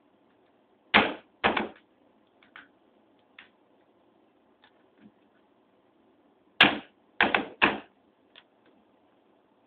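A bump key being struck in a Sargent 6-pin mortise lock cylinder: sharp metallic taps, two about a second in and a quick run of four near the end, with faint clicks of the key and pins between.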